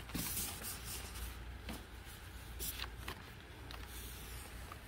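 Light handling noise as merchandise is packed and lifted in and out of a cardboard box: faint rustling of packaging with a few small knocks and clicks, over a steady low background rumble.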